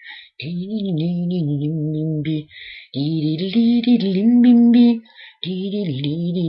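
A single voice singing a wordless, scat-like tune in three phrases of about two seconds each, with short breaks between them.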